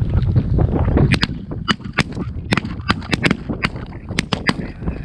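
Rapid volley of shotgun shots from several hunters firing together, about a dozen sharp reports in quick succession starting about a second in and lasting roughly three and a half seconds.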